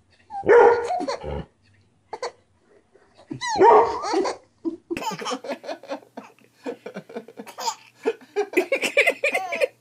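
A dog barking and a baby laughing out loud in bursts. After a cut about five seconds in, another baby giggles and laughs in quick short bursts, louder near the end.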